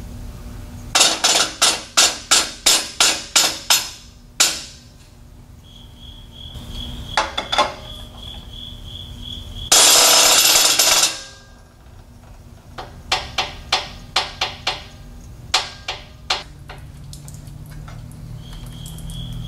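A hydraulic engine hoist being worked to lower an engine into a car's bay: two runs of sharp metallic clicks, about three a second, with a loud hiss lasting over a second between them. A faint high pulsing chirp comes and goes in the background.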